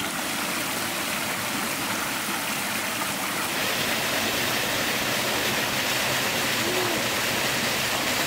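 Forest stream rushing over rocks and through a small cascade: a steady, even rush of water that grows a little louder about halfway through.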